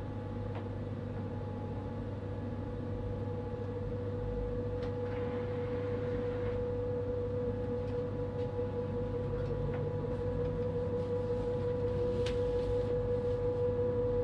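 Passenger train heard from inside the carriage as it rolls slowly out through the station: a low running rumble that slowly grows louder, under a steady humming tone. A few sharp clicks of the wheels over rail joints and points come in the second half.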